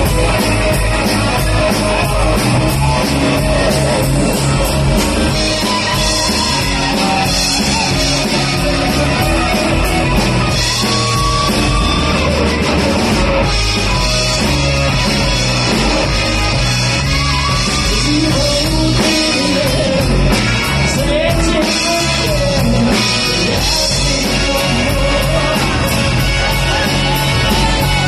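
Live rock band playing: electric guitar, bass guitar and drums, with a woman singing lead.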